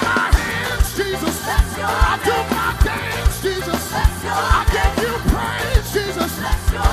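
Live upbeat gospel band: several singers over a driving drum beat, with keyboard and electric guitars.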